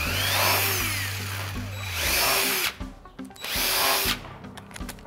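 DeWalt 20-volt cordless impact driver running in short trigger pulls, its pitch winding up and back down each time, as it fastens a metal collector plate to a door panel. The longest run lasts about two and a half seconds, and a shorter one comes near the four-second mark.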